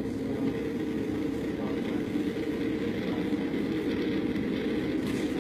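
Steady low drone of a light sport aircraft in flight, its engine and airflow noise unchanging throughout.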